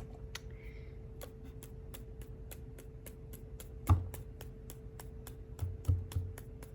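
Quick, even light tapping, about five taps a second, with a low thump about four seconds in and two softer thumps near the end, over a faint steady hum.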